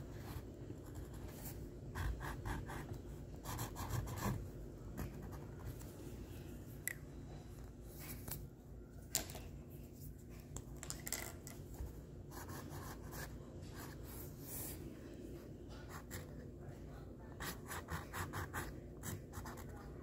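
Black Sharpie marker tip scratching across painted canvas in short clusters of quick strokes, faint, with pauses between them, over a low steady room hum.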